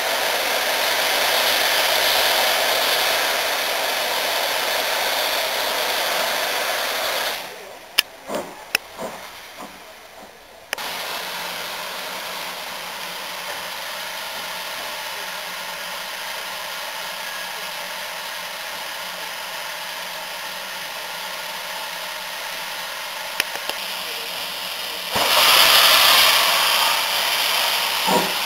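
Steam locomotive hissing steadily, steam blowing off from a BR Standard Class 2MT 2-6-0. The hiss drops away for a few seconds with a few clicks, then resumes and gets louder near the end as steam also blows from the cylinder drain cocks.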